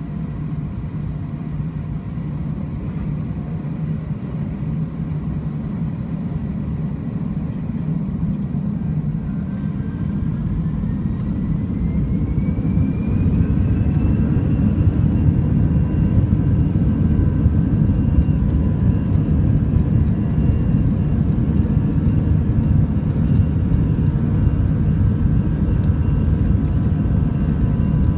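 Airbus A320's jet engines heard from inside the cabin while taxiing: a steady low rumble with faint whine tones. About ten seconds in a whine rises in pitch over a few seconds and the engines grow louder, then hold steady.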